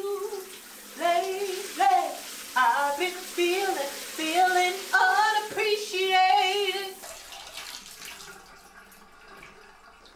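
A woman singing in the shower, short held notes with a wavering pitch, over the hiss of the shower spray. The singing stops about seven seconds in, leaving the water running.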